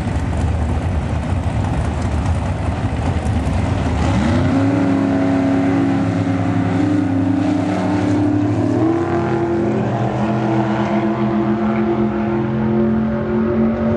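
Drag-racing cars, a Chevrolet Nova and a roadster, running loud at the starting line and launching down the strip. The engine note is rough for the first few seconds, then sweeps up about four seconds in to a high, steady pitch that steps up again about nine seconds in.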